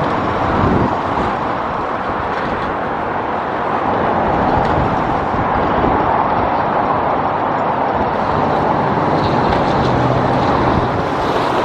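Road traffic going by steadily, a continuous rush of tyre and engine noise that grows louder about four seconds in, with a low engine hum near the end.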